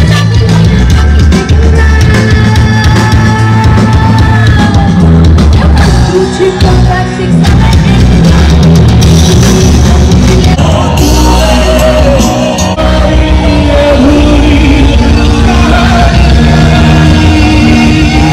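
Loud amplified band music with a singer over a heavy bass beat, rock-style.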